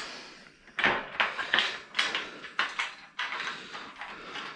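Metal brackets and hardware being handled and fitted during assembly of a table frame: a string of irregular clicks and knocks.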